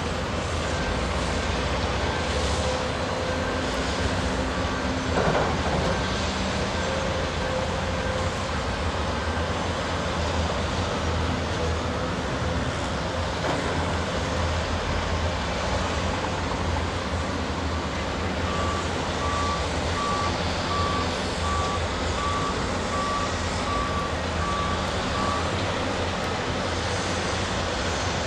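Heavy construction machinery engines running steadily with a low rumble. A reversing alarm beeps at an even pace for several seconds in the second half, and there is a single knock about five seconds in.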